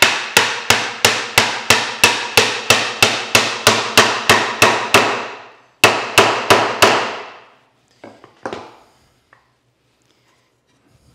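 Claw hammer pounding on the end of a wooden cabinet side, driving a glued dovetail joint together. It is a steady run of sharp blows, about three a second, that stops about five seconds in. Four more blows follow after a short pause, and a softer knock comes a little later.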